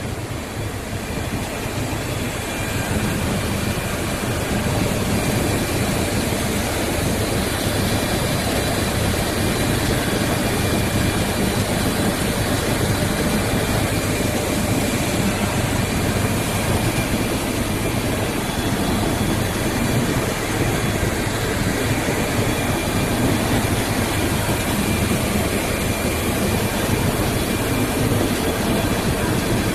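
Plastic pulverizer running, grinding plastic down to 30-mesh powder: a loud, steady mechanical roar with a faint high whine, building a little over the first few seconds and then holding constant.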